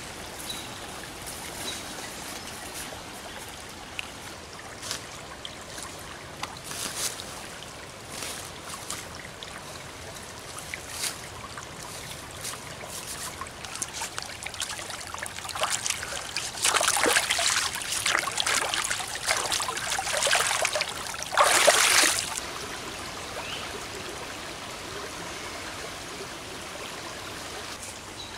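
Shallow creek trickling over rocks, with scattered small clicks of gear being handled. About two-thirds of the way through comes several seconds of louder splashing in the water.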